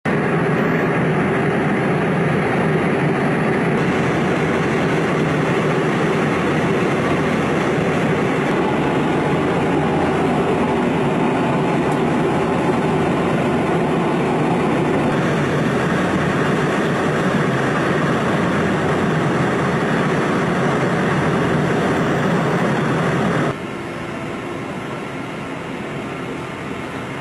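Jet aircraft engine noise on the ramp: a loud, steady rushing that shifts in tone a few times and drops abruptly to a lower level near the end.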